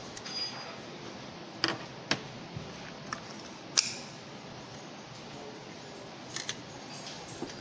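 Scattered sharp clicks and snaps as a Panasonic Eluga Arc 2 smartphone's back cover is pulled off with a suction cup, its clips letting go; the loudest snap comes a little before four seconds in. A steady hiss runs underneath.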